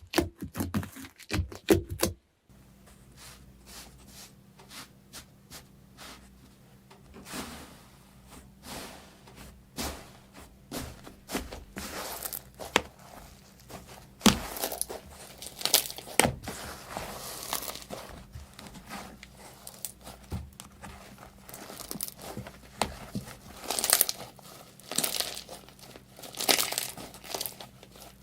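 Slime being squeezed and stretched by hand, giving a dense run of sticky pops, clicks and crackles. The sound drops suddenly about two seconds in and builds back up to loud pops later.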